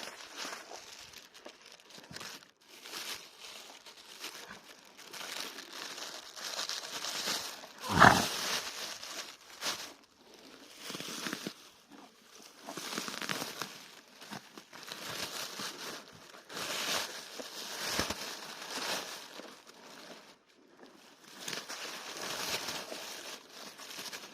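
An animal tearing at grass and chewing it with a crunching, crackly sound. About eight seconds in, one loud sharp blow of breath through the nose stands out above the chewing.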